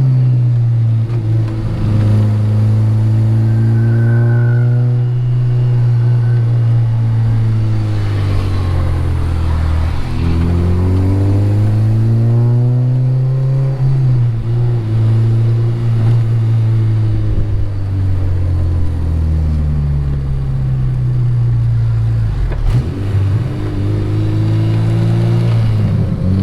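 K20-swapped Honda Integra Type R's 2.0-litre four-cylinder engine pulling through the gears on a warm-up lap, revs climbing and then dropping at each shift several times over, heard from inside the cabin.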